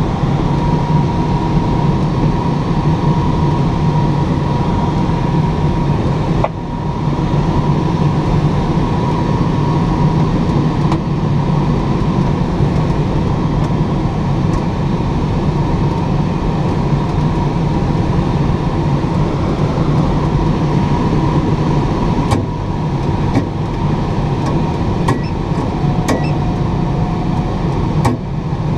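Steady rush of airflow around the closed cockpit of a Schleicher K8 glider in flight, with a thin steady tone running through it and a few short clicks near the end.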